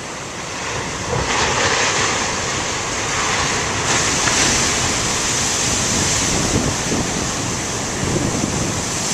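Large ocean waves breaking as a steady surf, swelling louder about a second in and again around four seconds, with wind buffeting the microphone.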